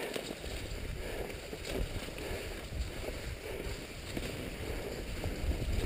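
Cross-country skis swishing and gliding over packed snow, with wind buffeting the microphone.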